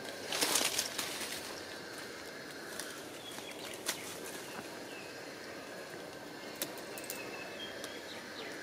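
Outdoor ambience: a brief loud rustle about half a second in, then a few sharp ticks and faint short high chirps over a steady background hum of insects or distant noise.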